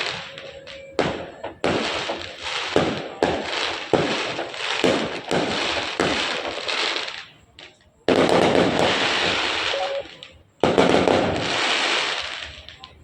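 Fireworks going off in a rapid series of bangs, each followed by a hissing crackle that fades. After a brief lull, two longer loud bursts come about eight and eleven seconds in.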